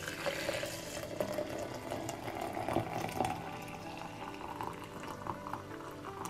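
Water poured in a steady stream into a glass French press onto loose tea leaves, the liquid splashing and filling the jug, loudest in the first few seconds and easing as the level rises. Background music plays underneath.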